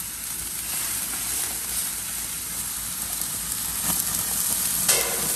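Marinated iguana tail meat sizzling on a hot gas grill's stainless steel grates: a steady hiss, with a short click near the end.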